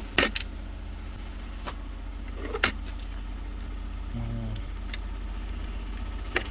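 A few sharp clicks and taps of small plastic and metal parts being handled as a phone holster's belt clip and its pin are taken apart, the loudest nearly three seconds in, over a steady low hum.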